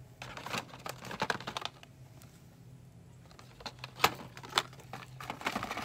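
Plastic blister-pack air freshener cards clicking and crinkling as they are picked up and handled off a store shelf, in three short flurries of clicks.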